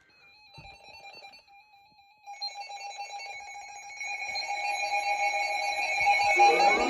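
Electronic weather-alert alarm: a pulsing tone that starts faintly and grows steadily louder. Near the end a wailing siren begins to wind up, rising in pitch.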